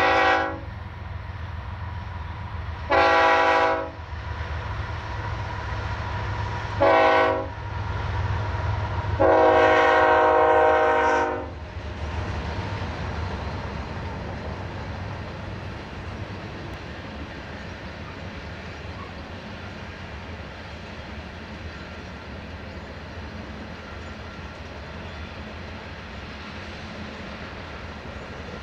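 BNSF diesel freight locomotive's multi-note air horn sounding the long-long-short-long grade-crossing warning: the tail of one long blast, another long blast, a short blast and a final longer blast that stops about eleven seconds in. Under and after it is the steady low rumble of the freight cars rolling past.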